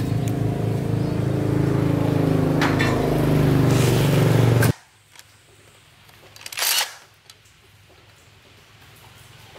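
A motor running with a steady pitched hum, its pitch drifting slightly, that cuts off abruptly about five seconds in. It is followed by quiet with a few small clicks and a brief scraping hiss.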